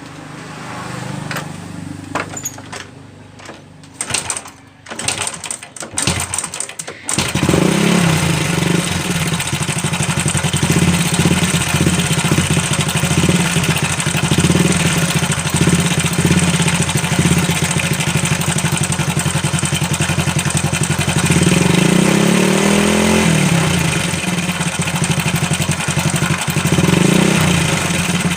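Honda Supra Fit motorcycle's single-cylinder four-stroke engine being started, catching about seven seconds in, then idling with two brief revs, the second near the end. The engine makes a 'celek' rattle, which the mechanic first takes for a slack cam chain or a badly adjusted cam chain tensioner.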